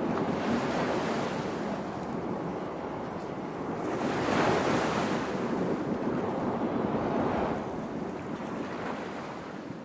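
Sea water rushing and splashing, with wind buffeting the microphone. The steady rushing swells about four and a half seconds in and again around seven seconds, then sinks toward the end.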